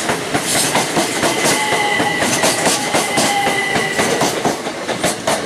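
Class 379 Stansted Express electric multiple unit passing alongside the platform, its wheels clattering rapidly over the rail joints. A steady high whine runs for a couple of seconds in the middle.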